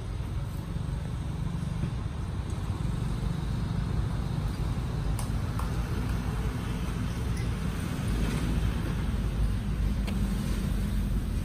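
Steady low outdoor rumble that swells a little in the last few seconds, with no clear animal calls over it.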